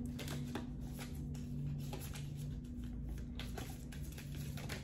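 Tarot cards being shuffled and handled: soft, irregular clicks and rustles of card stock.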